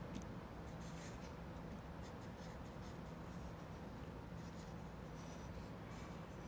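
Felt-tip marker strokes on paper, a faint scratching and squeaking as Arabic letters are written by hand, over a faint steady low hum.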